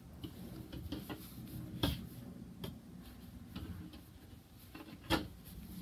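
Hands working thick merino wool roving on a tabletop while casting on stitches for hand knitting, with scattered light taps and clicks, a louder one about two seconds in and another near the end.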